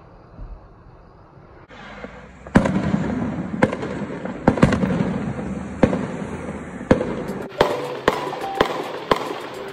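Fireworks exploding: a string of sharp bangs begins about two and a half seconds in, coming roughly a second apart, then quickens into rapid crackling near the end.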